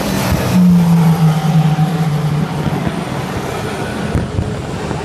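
A race car driving past on the circuit. Its engine note is held for about two seconds and drops slightly in pitch as it goes by, just after a brief bang near the start, over a steady din of crowd and outdoor noise.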